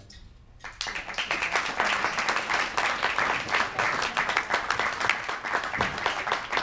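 Audience applauding, a dense patter of many hands clapping that starts suddenly about a second in.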